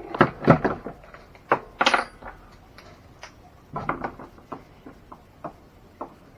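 Hard small parts and tools clinking and knocking as they are handled and set down, in a few short clusters with quiet gaps between.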